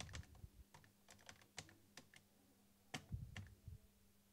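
Keys typed on an Amstrad NC100 notepad computer's keyboard: soft, irregular clicks, with a small flurry near the start and another about three seconds in.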